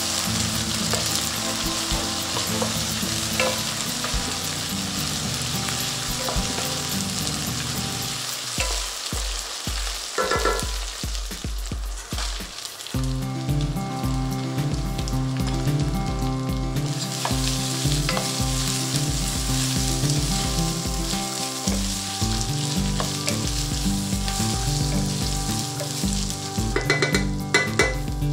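Onions and spices sizzling in hot oil in a stainless steel pot while being stirred with a wooden spatula. Strained moong dal is added and stirred in, and the sizzle dies down for a few seconds about halfway before picking up again. Background music with a steady beat plays throughout.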